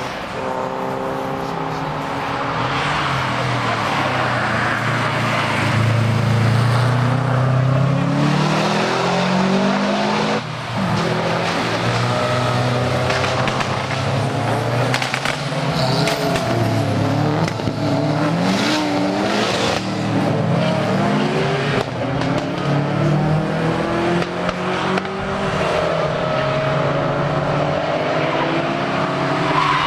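Competition car engine running hard on a hillclimb, revving up through the gears and dropping back again several times.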